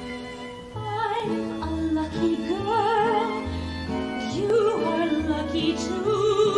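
A stage musical number: a man singing in an operatic style with wide vibrato over a pit orchestra. A held orchestral chord opens it, and the voice comes in about a second in over sustained strings and a steady bass line.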